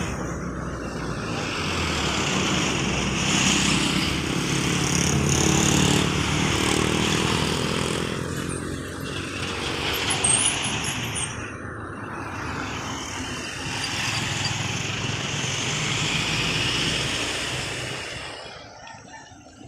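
Road traffic with motor vehicle engines running close by, one engine's hum rising and falling in the middle; the noise drops away sharply near the end.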